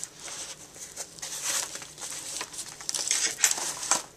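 Fabric canteen cover pouch rustling and scuffing as it is handled and a metal tin is pushed into it, with a few light clicks.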